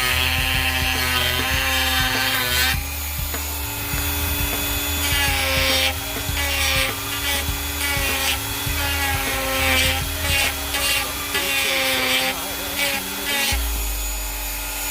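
Power grinder with an 80-grit sanding disc grinding down damaged nonskid on fiberglass gel coat: a steady motor whine that dips slightly under load, with scratchy grinding noise coming and going as the disc is pressed on and eased off.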